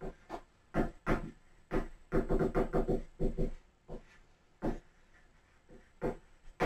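Dry-erase marker squeaking and scraping on a whiteboard in quick short strokes while handwriting words. There is a pause a little over four seconds in, then a few more strokes near the end.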